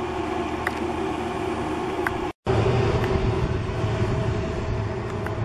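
Pellet grill's fan running steadily with a low hum and rushing noise as the grill overheats and pours smoke. The sound breaks off for an instant about two seconds in.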